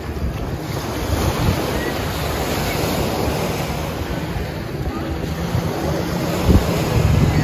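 Small surf washing up on a sandy beach, with wind buffeting the microphone in low rumbling gusts that grow stronger near the end.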